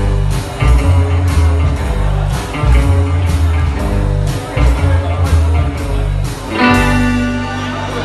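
Live rock and roll band playing an upbeat number on drum kit, bass and electric guitar with a steady driving beat. About six and a half seconds in, the drums stop and the band holds a final ringing chord to end the song.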